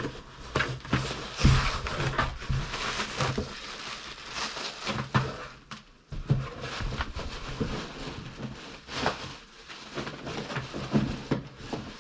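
Packaging being opened and handled by hand: rustling and crinkling with scattered knocks and thuds.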